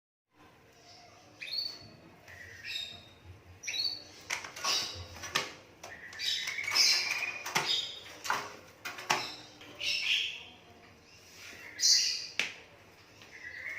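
A hand-fed young Asian pied starling (jalak suren) calling: short harsh chirps and squawks, roughly one every second or so, with sharp clicks among them.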